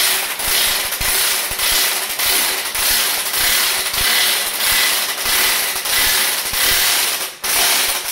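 Impact wrench hammering continuously as it runs the pinion nut down on a Dana 27 front axle until the nut seats. The rattle swells and eases in a regular pulse and stops near the end after a short last burst.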